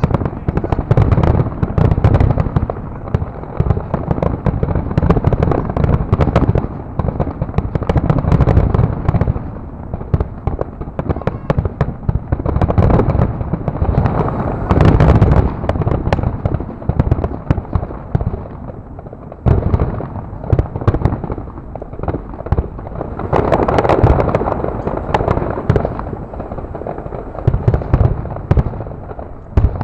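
Fireworks display: aerial shells bursting in quick succession, deep booms overlapping with sharp pops and crackle, with a short lull a little past halfway.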